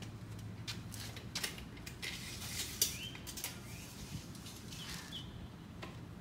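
Steel tape measure being handled against a wooden 4x4 post: scattered clicks and rattles, with a longer sliding rasp about two seconds in.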